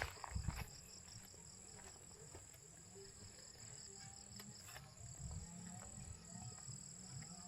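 Insects such as crickets chirring steadily in a high, continuous trill, with a few soft footstep thumps near the start.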